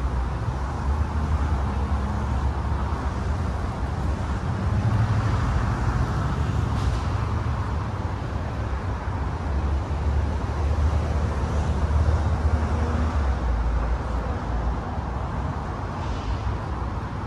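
Steady low rumble of vehicle noise with no distinct event.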